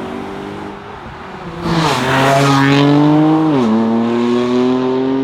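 Mercedes-AMG GT R's twin-turbo V8 through an aftermarket exhaust, running steadily at first, then accelerating hard about a second and a half in. Its note climbs, drops sharply with an upshift a little past halfway, then climbs again.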